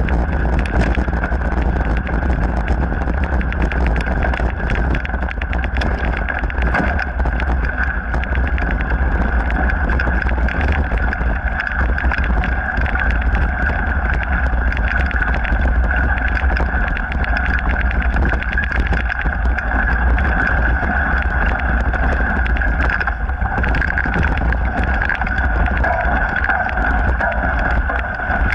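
Mountain bike ride noise on a dirt trail: a steady low rumble of wind and vibration with a continuous whir and frequent small rattles and clicks from the bike over the ground.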